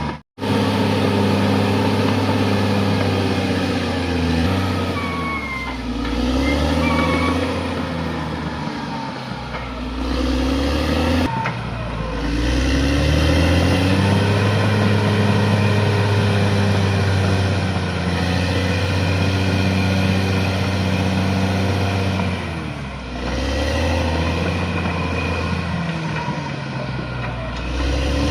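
Bulldozer's diesel engine working under load, its speed repeatedly sagging and rising again as it pushes. The sound cuts out for an instant just after the start.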